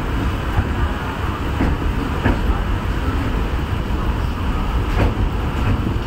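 Passenger train running slowly across a river bridge, heard from a carriage window: a steady low rumble and noise, with a few faint clicks from the wheels and track.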